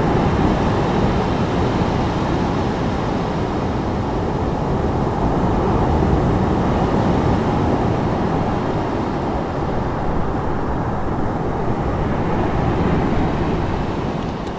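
Medium sea waves washing on a shore, a steady deep rushing noise that swells and eases slowly.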